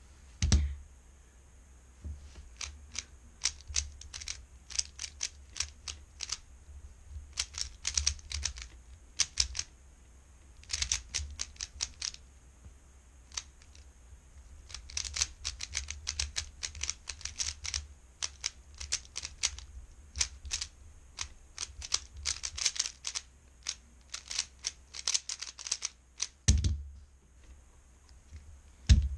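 Rapid clicking of a 3x3 speedcube's layers being turned by hand during a timed solve, coming in quick bursts with short pauses between them. A heavier thump comes just after the start and another about 26 seconds in.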